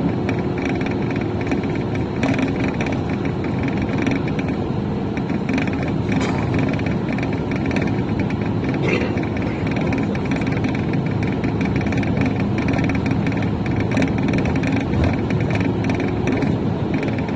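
Steady vehicle noise: a continuous rumble and hiss with no breaks.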